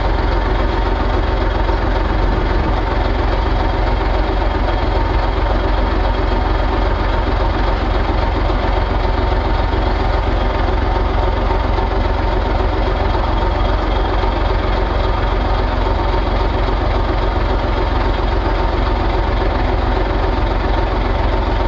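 Excavator's diesel engine running steadily: a constant low rumble that does not change in pitch or level.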